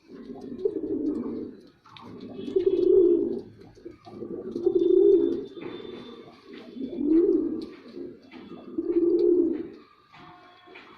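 Male domestic pigeon cooing: five low, swelling coos about two seconds apart, the courtship call a male gives to a female.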